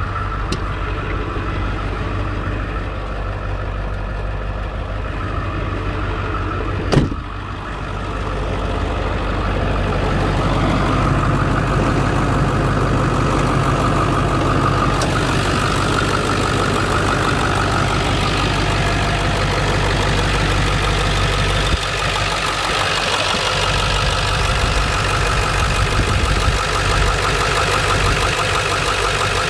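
Ford 7.3-litre Power Stroke V8 turbo diesel idling steadily, louder from about a third of the way in. A single sharp knock comes about a quarter of the way in.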